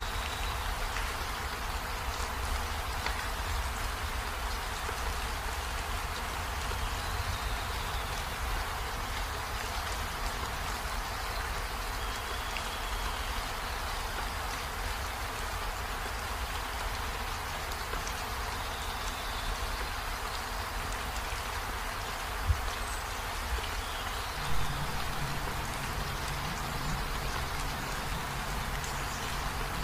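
A steady hiss like rain, unchanging throughout, with two short knocks about three-quarters of the way through and a low steady hum that joins just after the second.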